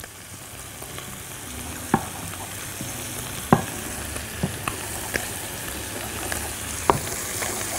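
Flour and ghee sizzling together in a hot wok as they are stirred. The sizzle slowly grows louder, with about five sharp clicks of a utensil against the pan.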